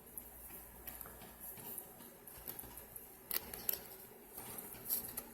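Faint handling noise of small metal lock picks being picked up and set down: light clicks and taps, with a few sharper clicks a little past halfway and near the end.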